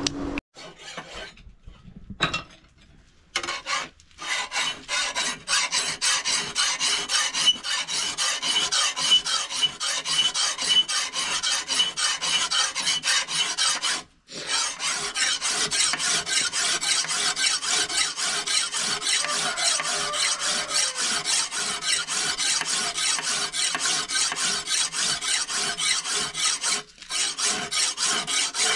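A hand file rasping back and forth on a cow-horn workpiece held in a vise, in quick, steady strokes. It begins after a few quiet seconds with a couple of knocks, and breaks off briefly twice.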